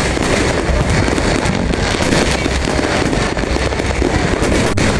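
Fireworks display going off without a break: a dense run of booms and crackling bangs.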